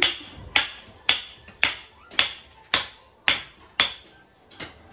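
Hammer blows struck at a steady pace of just under two a second, about nine sharp knocks with a brief ring after each, growing weaker near the end.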